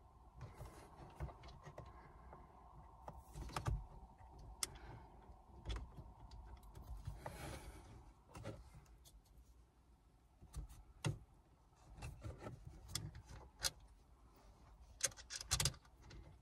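Faint, scattered clicks and small knocks of shifter base bushing pieces and hardware being handled and fitted into a car's shifter assembly, with a brief rubbing sound about seven seconds in.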